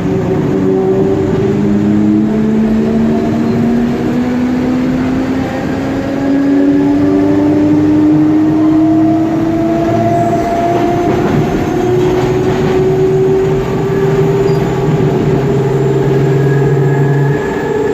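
Traction motors of a Mafersa-built CPTM Série 1700 electric multiple unit humming loudly under power, heard from inside the passenger car over the rumble of the wheels on the rails. Several tones climb slowly and steadily in pitch as the train accelerates, and a low steady tone drops out near the end.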